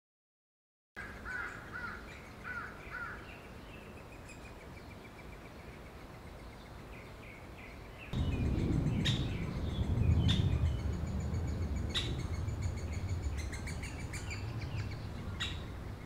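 Wild birds calling in woodland: a quick run of chirps soon after the start, then a few sharp, single call notes a second or more apart. From about halfway these notes sit over a low rumble.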